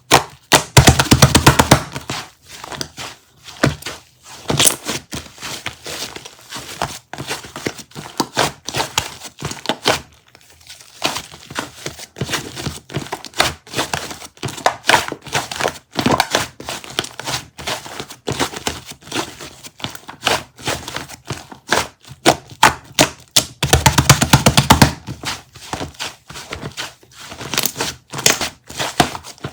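Crinkling, tapping and tearing handling sounds, like paper or plastic being handled by hand, with two stretches of fast rattling crackle near the start and again late on.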